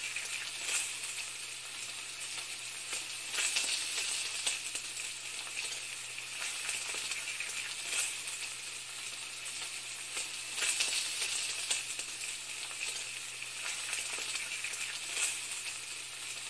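Steady sizzling of food frying in a hot pan, with irregular louder crackles and pops every second or few.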